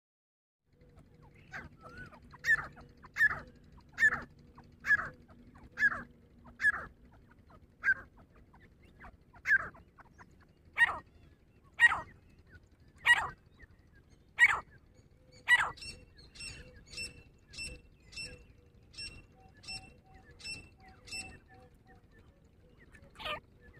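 Grey francolin calling: a long series of loud, harsh, evenly repeated notes, about one a second, growing louder and longer towards the middle. After that come several seconds of faint, quick, high ticking notes, and one more loud call near the end.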